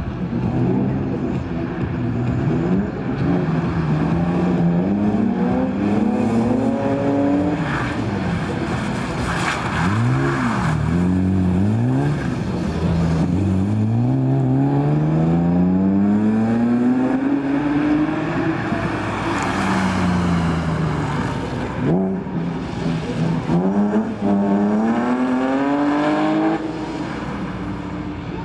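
BMW E30 slalom car's engine revving hard, its pitch climbing and falling again and again as the driver accelerates and lifts between the cones. It gets quieter near the end.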